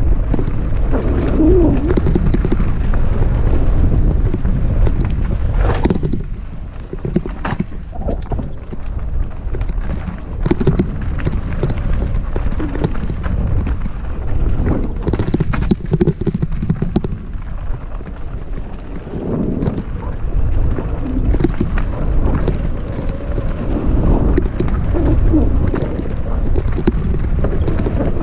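Wind buffeting a body-mounted camera's microphone during a fast ride down a dirt singletrack, a heavy rumble that rises and falls, with scattered knocks and rattles over rough ground.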